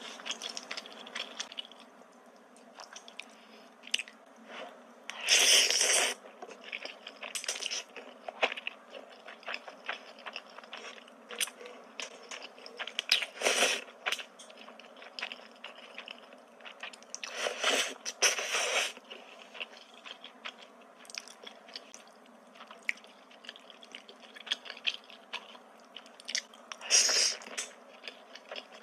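A person eating creamy carbonara spaghetti: wet chewing and small mouth clicks, broken by several loud slurps as forkfuls of noodles are sucked in.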